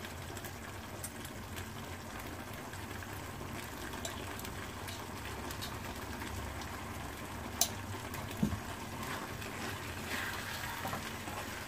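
Steady hiss of a gas stove burner and a thick pan of rava kesari (semolina cooked in sugar water) simmering on it. Two short clicks come about seven and a half seconds in, a second apart.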